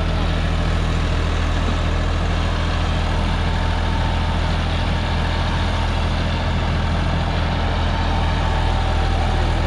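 John Deere 5405 tractor's diesel engine running steadily under load, driving a 10-foot PTO rotavator whose blades churn through the soil. The sound is a constant deep drone under a rough, even rumble.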